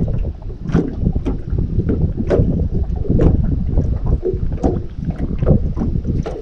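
Wind rumbling on the microphone aboard a small fishing boat, with irregular sharp knocks and slaps, about one or two a second.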